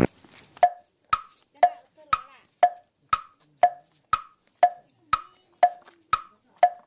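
Wood-block sound effect knocking steadily about twice a second, alternating a lower and a higher note, used as comic walking footsteps.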